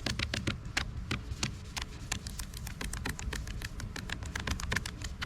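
Quick, repeated rubbing strokes of a Boat Scuff Eraser pad scrubbing a scuff mark off a boat's rubbery foam-filled decals, several strokes a second.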